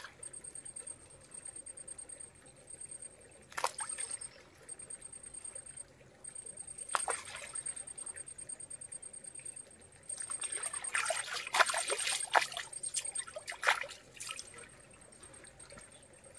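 Water splashing and trickling in several short bursts, the loudest cluster about ten to fourteen seconds in, over a steady high-pitched trilling.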